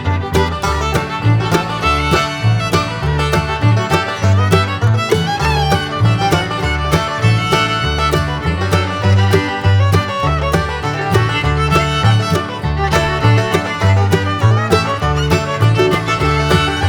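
Background music: an upbeat country-bluegrass style tune with fiddle and plucked strings over a steady bass beat.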